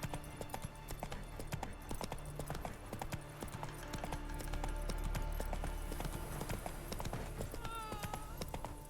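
Video game sound of a horse's hooves clip-clopping along, over a low steady ambient rumble, with a short pitched call near the end.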